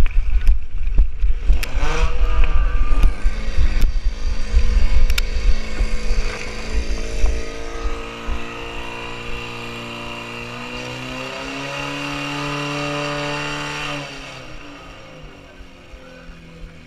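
Heavy wind rumble on the microphone while running, then a fire pump's engine revving up about six seconds in, holding high, steady revs and dropping back near the end.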